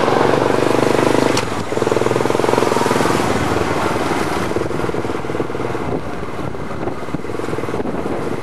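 Motorcycle engine running steadily at low speed, an even low hum with a brief dip about a second and a half in.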